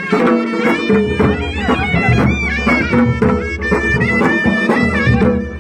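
Pahari nati folk music: a reedy wind-instrument melody with gliding, ornamented notes over steady drum beats.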